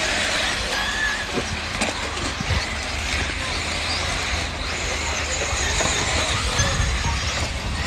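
Radio-controlled off-road buggies racing around a dirt track, their motors giving a faint, shifting whine over a steady hiss and a low rumble.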